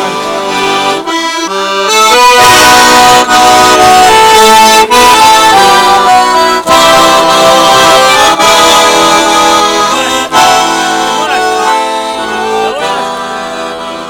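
Garmon (Russian button accordion) playing an instrumental passage of chords and melody. It swells to full volume about two seconds in and eases off after about ten seconds.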